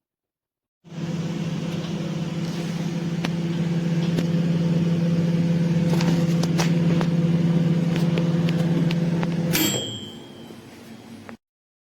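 Orbegozo MI 2115 microwave oven running with a steady low hum and a few light clicks. It stops near the end with a sharp click and a short ringing tone, then a quieter whir.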